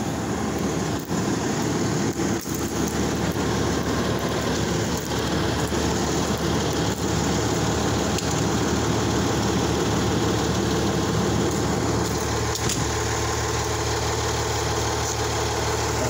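Engines of parked emergency vehicles, a fire engine and an ambulance, idling steadily with a low rumble, with a few brief knocks over it.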